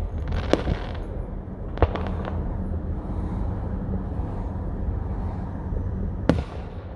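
Fireworks going off: sharp bangs about half a second in, a quick cluster near two seconds and another near the end, over a steady low rumble.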